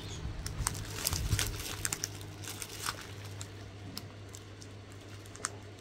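Small plastic bags of diamond-painting drills being handled: scattered light crinkles and ticks that thin out toward the end, over a low steady hum.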